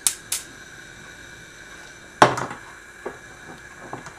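Gas stove burner being lit, a few quick clicks at the start, then burning with a steady faint hiss. About two seconds in, a stainless steel pot is set down on the burner's cast iron grate with one loud clunk, followed by a few light knocks as it is settled.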